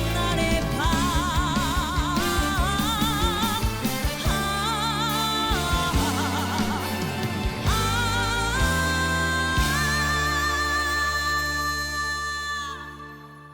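Trot song ending: a woman sings the closing phrases with heavy vibrato over a band, then holds one long final note over the closing chord, which dies away near the end.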